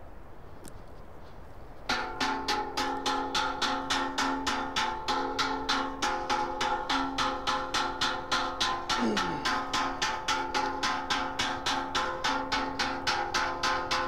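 Metal bucket beaten with a stick in a fast, even rhythm, about four strikes a second, each strike ringing on. It starts about two seconds in. The bucket is beaten to call reindeer back to the herder.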